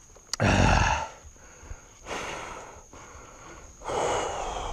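A man breathing hard to recover after a steep uphill mountain-bike climb: three heavy, wordless breaths about a second and a half apart, the first the loudest and blowing on the microphone.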